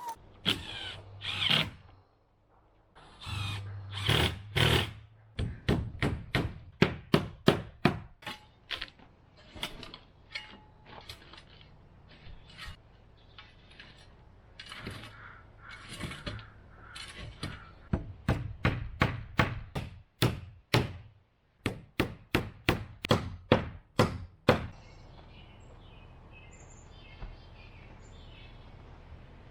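Hammer work on a wooden fence: runs of sharp blows, several a second, with a few longer, rougher bursts in the first few seconds.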